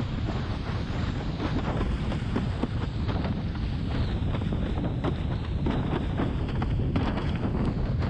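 Steady, heavy wind buffeting on a camera microphone, mixed with rushing water and spray from a windsurf board planing over choppy sea.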